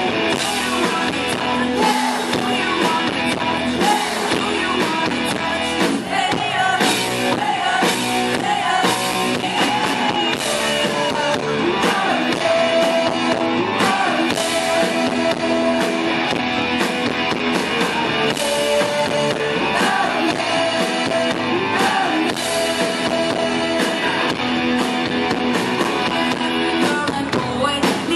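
A live rock band playing a song through a concert PA: electric guitars, bass and a drum kit with steady cymbal hits, under a woman's lead vocal.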